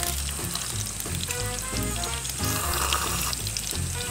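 Meat sizzling on a grill, a steady crackle, with background music playing over it.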